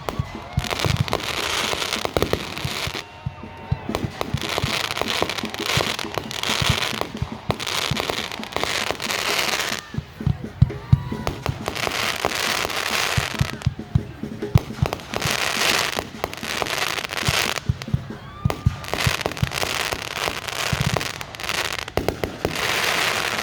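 Fireworks going off: many sharp bangs and crackles throughout, over repeated swells of hissing.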